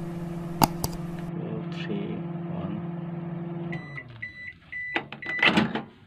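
Khind microwave oven running with a steady hum and no sparking after its waveguide cover was replaced. About four seconds in, the hum stops and the oven beeps about four times to signal the end of the cycle, then the door clunks open.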